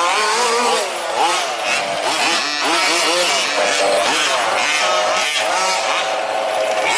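Several 1/5-scale RC off-road trucks' small two-stroke petrol engines revving up and down, overlapping and changing pitch constantly as they circulate.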